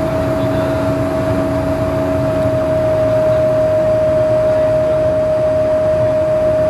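Cabin noise inside a BAe Avro RJ100 on approach: its Honeywell LF507 turbofans give a steady high whine over a constant rushing hiss of airflow.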